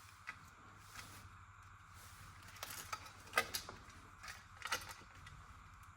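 Light scattered clicks and taps of small switch parts being handled and fitted into a panel, with a cluster of sharper clicks around the middle.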